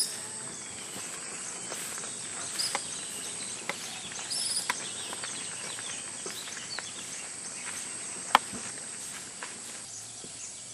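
Outdoor ambience: a steady hiss with a thin, steady high-pitched whine, scattered short high chirps and squeaks, and faint clicks, with one sharper click about eight seconds in.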